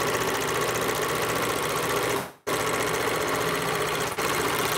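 A four-thread, two-needle serger stitching a rolled hem along a fabric edge, running steadily at speed. It stops suddenly a little over two seconds in and starts again a moment later.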